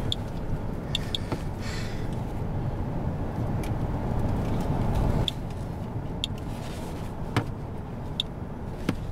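Radalert Inspector Geiger counter clicking at random intervals, about eight sharp clicks, at a background-level count that shows no detectable radioactivity in the sample. Under it runs the steady road and engine noise of a car being driven, easing a little about five seconds in.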